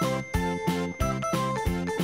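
Light background music for children: a steady beat of about three strokes a second under a simple, high, plinking melody.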